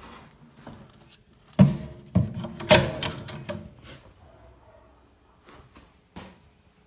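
Metal clanks and rattles from handling a wire-mesh enclosure door and its sliding bolt latch, loudest about two to three seconds in, dying down, then one more knock near the end.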